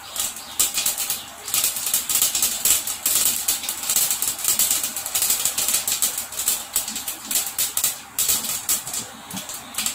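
Mustard seeds popping and spluttering in hot oil in a covered kadai, a dense, irregular crackle of small pops, some of them ticking against the glass lid.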